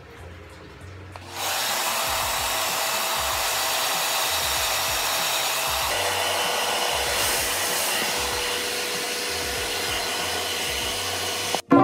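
Inexpensive anion handheld hair dryer switched on about a second in and blowing steadily on wet hair, an even airy rush with a faint motor whine. It cuts off abruptly near the end.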